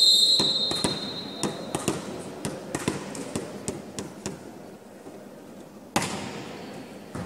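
Referee's whistle blast signalling the serve, fading out over about two seconds. A volleyball is then bounced about a dozen times on a wooden gym floor, and the ball is struck hard about six seconds in on the serve, ringing in the hall.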